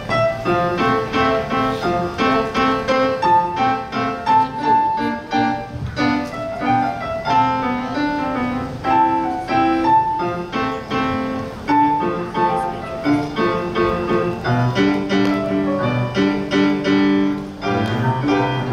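Solo piano piece played by a young student: a melody of quick separate notes over lower chords, several notes a second with a steady pulse.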